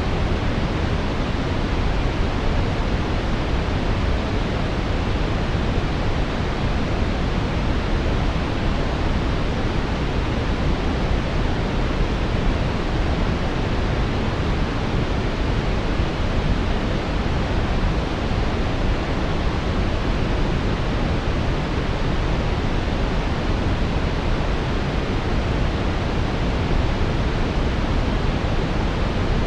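Steady synthetic brown noise: an even, deep hiss weighted toward the low end, with no changes or events.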